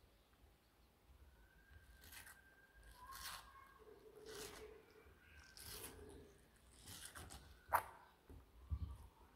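A tortoise biting into watermelon flesh, giving faint, wet, crunching bites about once a second, around seven in all.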